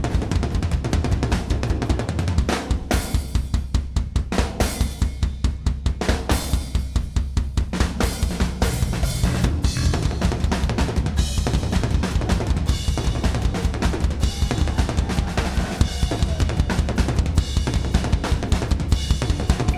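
Rock band playing live through an instrumental passage, led by a driving drum kit with steady bass drum, snare and cymbals.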